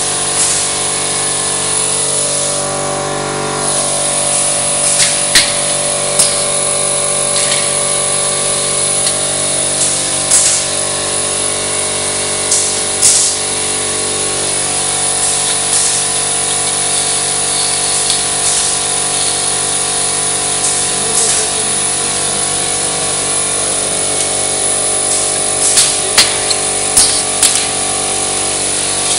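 MobiProf GK roll-forming machine running steadily, making KNAUF-type steel drywall profiles, with short sharp metallic knocks now and then, several close together near the end.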